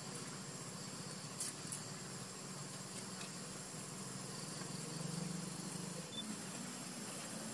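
Outdoor background of a steady high insect drone over a faint low rumble, with a brief click about one and a half seconds in.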